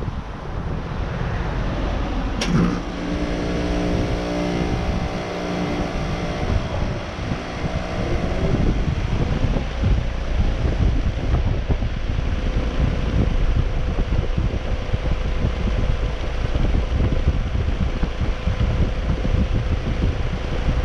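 2009 American Standard Heritage 15 heat pump outdoor unit starting up in cool mode: a sharp click about two and a half seconds in, then a hum of several steady tones for about six seconds as it comes on, settling into steady running with a rush of fan air and a faint steady tone.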